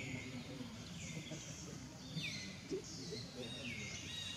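A bird calling repeatedly, about once a second. Each call drops quickly in pitch and then holds a short high note, over a low background murmur.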